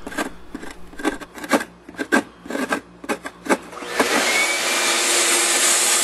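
A flat metal scraper blade rasps over hardened old plaster in short strokes, about two a second, chipping it loose. About four seconds in, a vacuum cleaner starts up and runs with a steady loud hiss, sucking up the chips.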